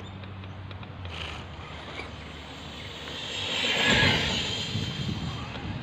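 Electric Losi short course RC truck speeding past on grass at full throttle. Its motor and tyres swell to a peak about four seconds in, then fade, with wind buffeting the microphone.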